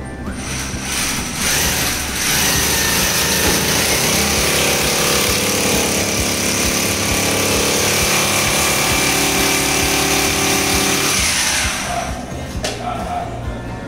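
Electric power tool motor running steadily for about ten seconds with a high whine, then winding down.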